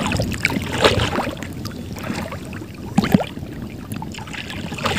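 Sea water sloshing and lapping around people wading chest-deep, with a couple of short, sharper splashes about one second and three seconds in.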